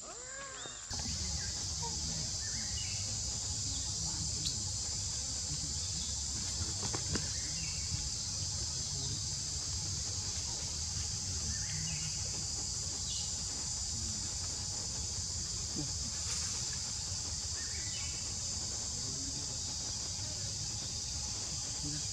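Steady high-pitched insect chorus, starting about a second in, over a low rumble, with short chirping calls every few seconds.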